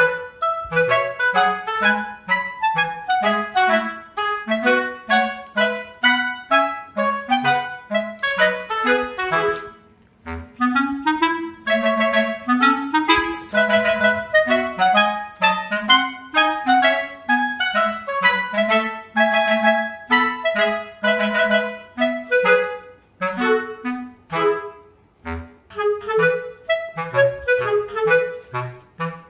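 Background instrumental music: a tune of quick, short notes, with a brief break about ten seconds in.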